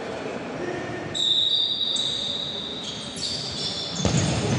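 Indoor football in a sports hall: players' shoes squeal on the court floor several times from about a second in, and a ball thump comes near the end, echoing in the hall.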